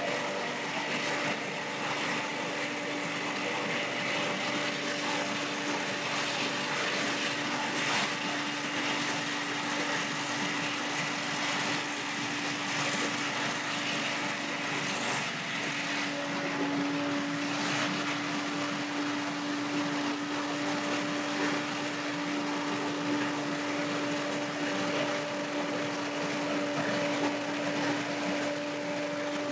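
Billy Goat Hurricane X3000 walk-behind leaf blower running steadily, its Vanguard V-Twin engine holding an even speed with a constant hum over the rush of air from its fan.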